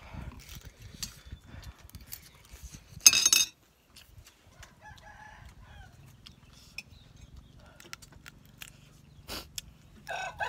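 A rooster crowing: a faint crow about halfway through and a louder, drawn-out crow starting near the end. About three seconds in comes a short, loud, sharp noise, and there are small chewing and mouth sounds at the start.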